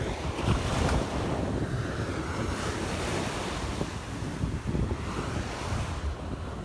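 Surf washing onto the beach, a steady rush of breaking waves, with wind buffeting the microphone in low gusts.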